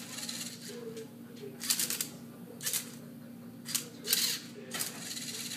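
Rubik's Cube solving robot turning the cube's faces one move after another: about six short mechanical bursts of plastic scraping and motor noise, spaced irregularly around a second apart, over a steady hum.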